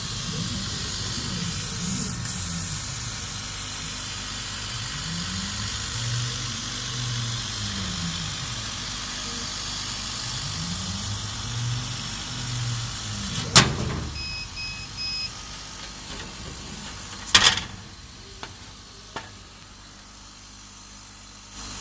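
Kamach 1290 laser cutter running: the motors driving the head whine in low tones that rise and fall in repeated sweeps as the head speeds up, travels and slows, over a steady hiss. Two sharp knocks come about thirteen and seventeen seconds in, followed by a few light clicks, and the motor sweeps stop after the second knock.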